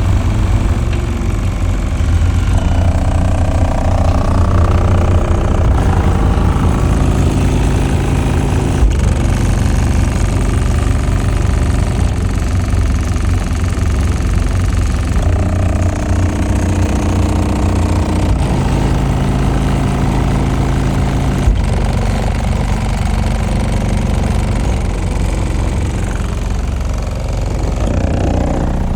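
Bass-heavy music played loud through a car audio subwoofer system. Deep bass dominates, with note changes every few seconds.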